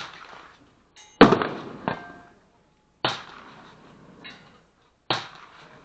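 Five sharp gunshots at irregular intervals, each followed by a short ringing echo, from other shooters' guns firing on a shooting range while the recording pistol lies still.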